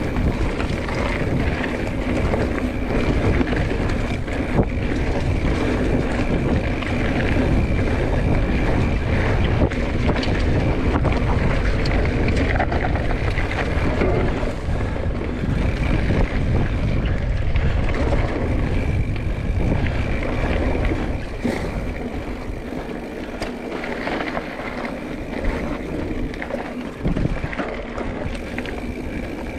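Wind buffeting the microphone of a camera riding along on a mountain bike, a dense low rumble with scattered knocks and rattles from the bike over rough ground. The rumble eases about three quarters of the way through.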